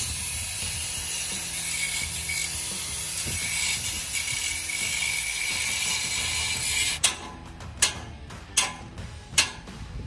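Angle grinder with a cut-off disc cutting through a steel gate bar: a steady high grinding hiss with a faint whine that stops abruptly about seven seconds in. Then come three or four sharp knocks.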